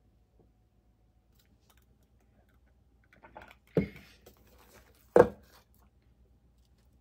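A little faint handling noise, then two dull knocks about a second and a half apart, the second the louder: a ceramic plate bumping on a tabletop as a grilled cheese toast is set down on it and handled.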